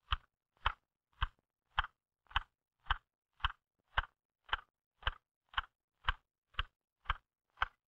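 Typewriter keys struck one at a time at a slow, perfectly even rhythm, about two strokes a second. Each stroke is a sharp clack of the type bar hitting the platen, typed as a home-row precision-and-rhythm drill.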